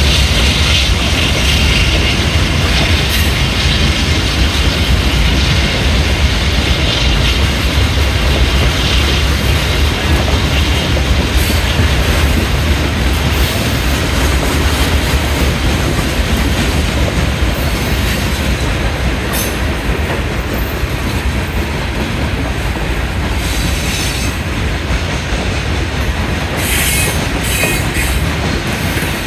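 Freight train rolling past: a steady rumble of the cars on the rails, with a few sharp clicks near the end.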